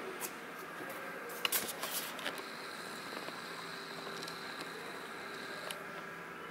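Steady indoor room tone, a low hum and hiss with a faint high whine, broken by a few short sharp clicks and knocks about one and a half to two and a half seconds in.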